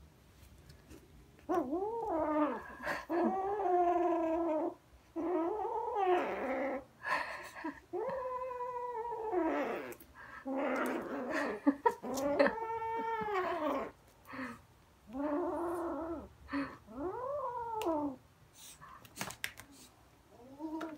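Orange tabby kitten growling with a fluffy toy in its mouth: a string of long, wavering growl-yowls, one after another, a kitten guarding its prey and refusing to let go. A few sharp knocks come about twelve seconds in.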